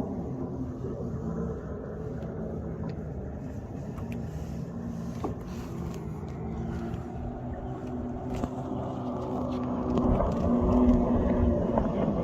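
Distant motorboat engine droning steadily, with a low hum that grows louder about ten seconds in.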